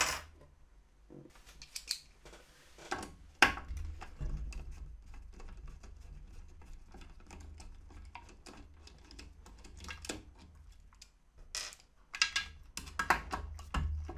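Scattered clicks, taps and light scrapes of a screwdriver and plastic wire connectors being worked in an electric scooter's wiring compartment, busiest near the end, over a low steady hum.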